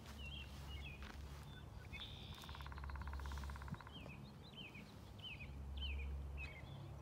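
Wild songbirds calling: a run of short, high, falling chirps repeated about twice a second, joined about two seconds in by a buzzy rapid trill lasting about a second. A low rumble runs underneath.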